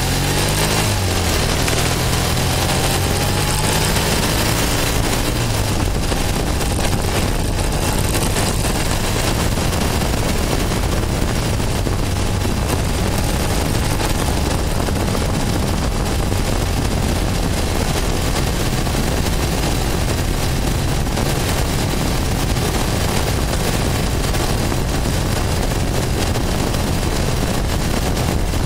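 1973 Triumph Tiger's parallel-twin engine running on the move. Its pitch rises over the first few seconds as the bike accelerates, then it holds steady at a cruise, over road and wind noise.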